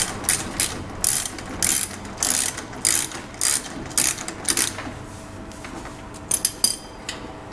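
Socket ratchet wrench clicking in quick back-and-forth strokes, about two a second, as a 14 mm bolt on a motorcycle exhaust is backed out; it pauses and gives two more strokes near the end.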